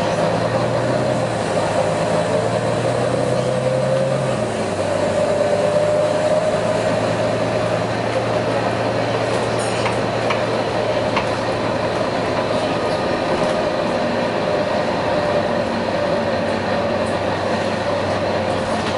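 Volvo B9TL bus's six-cylinder diesel engine running with a steady hiss and a wavering whine over it, which the owner takes for a dodgy turbocharger. The low engine note shifts about four seconds in.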